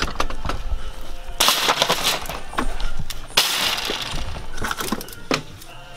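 Rolls of duct tape being grabbed off a store shelf and tossed into a metal shopping cart, knocking and clattering against the wire basket and the other rolls in repeated bursts, the longest about one and a half and three and a half seconds in.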